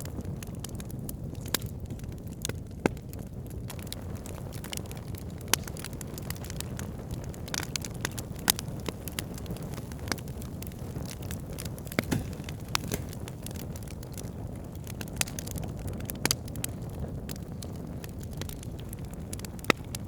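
Wood campfire burning: a steady low rumble of flame with sharp, irregular crackles and pops from the burning logs.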